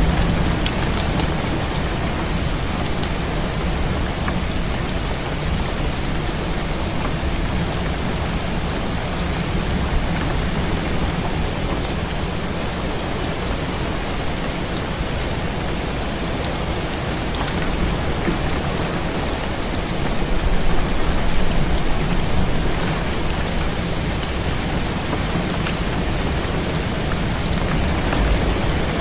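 Heavy rain falling steadily, a dense even patter that swells louder for a couple of seconds about two-thirds of the way through.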